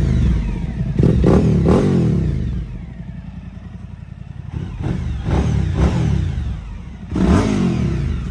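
Suzuki V-Strom 1050XT's V-twin engine idling and revved in short throttle blips. There are two quick revs about a second in, a stretch at idle, then several more blips and a bigger rev near the end, each falling back to idle.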